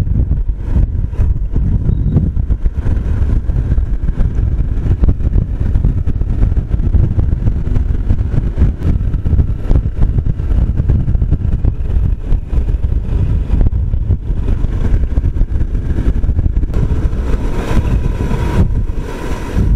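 Motorcycle riding along a road: engine and road noise under a heavy, uneven low rumble of wind buffeting the microphone.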